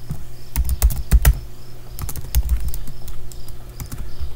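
Typing on a computer keyboard: irregular keystrokes, several of them louder about a second in, over a steady low hum.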